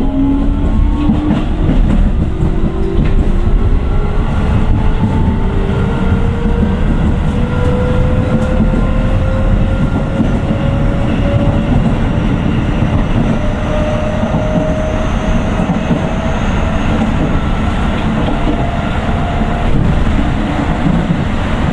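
Keio 9000 series train's Hitachi IGBT VVVF inverter and traction motors whining as the train accelerates, several tones rising slowly and steadily in pitch over a steady rumble of wheels on rail, heard from inside the car.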